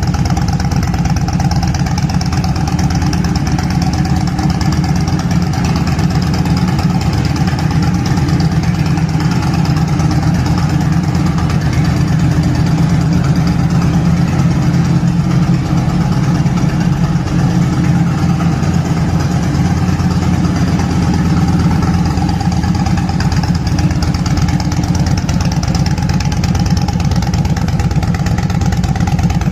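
Yamaha Midnight Star 950's air-cooled V-twin idling steadily through a custom sport exhaust, a loud, strong low rumble with no revving.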